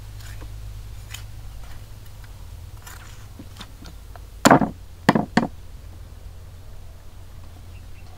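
Meat cleaver chopping through a raw duck carcass on a thick wooden chopping block: three heavy chops about four and a half seconds in, the last two close together, with light knife taps and clicks before them.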